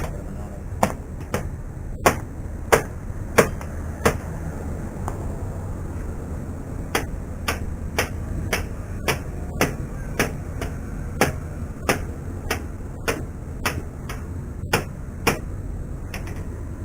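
Hammer striking steel: sharp metallic taps about two a second, pausing for about three seconds after the first few, over a steady low hum.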